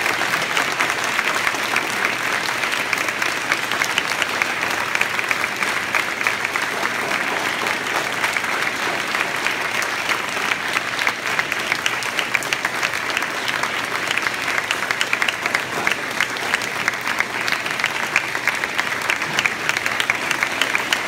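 Audience applauding: many hands clapping in a steady, dense patter, with single claps standing out a little more in the second half.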